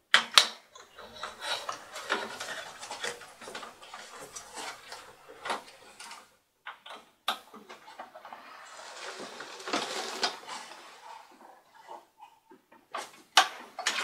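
Hands working cables and connectors inside a small-form-factor desktop PC's metal case. There are sharp clicks and knocks of plastic connectors and chassis parts, with cable rustling and scraping in between and a strong pair of clicks at the very start.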